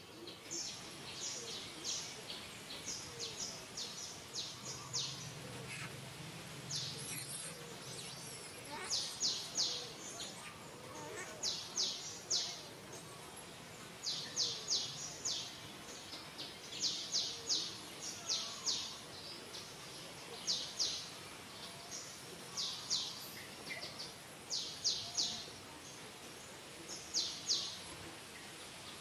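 Outdoor background hiss with repeated high-pitched chirps, each a quick group of three to five strokes, coming back every second or few seconds.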